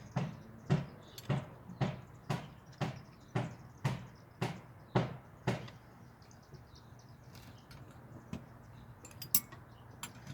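About a dozen sharp metal clicks from a hand tool at work on the outboard motor, evenly spaced at about two a second, stopping a little past halfway; a few fainter clicks near the end.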